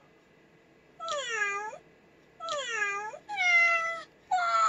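Recorded cat meows from the Neko98 desktop-pet program, played through the laptop's speakers: four meows, the first starting about a second in, the last two close together and the last running on past the end.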